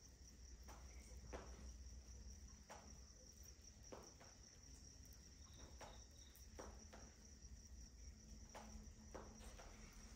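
Faint steady high chirring of crickets, with a scattering of soft irregular crackles from logs burning in a metal fire basin.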